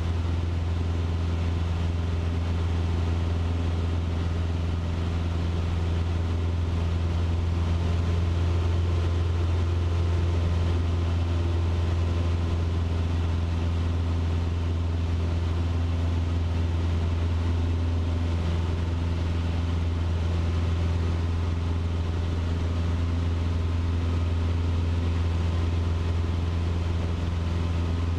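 Cessna 150's four-cylinder Continental O-200 engine and propeller droning steadily in flight, heard from inside the cabin.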